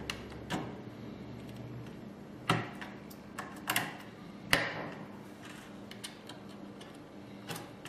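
Wiring connectors being pushed back onto an HID ACW2-XN networked controller: scattered sharp plastic clicks and clacks, the loudest about two and a half and four and a half seconds in, over a faint steady hum.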